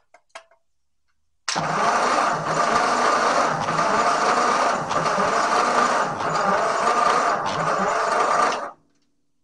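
1944 Ford 2N's flathead four-cylinder engine cranked over by its starter motor for about seven seconds, with an even pulsing, and then stopped abruptly. This is a wet compression test with the cylinders soaked in ATF, and compression still reads low.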